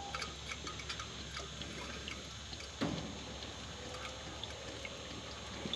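John Deere 7230R's fuel system priming with the key on: a faint steady hum and scattered light ticks as fuel flush is drawn from the flush gun through the hoses and filters to push the air out. A single short knock comes about three seconds in.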